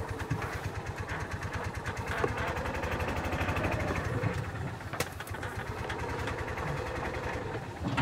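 Club Car gas golf cart engine running with a fast, even putter as the cart drives up and stops. There is one sharp click about five seconds in.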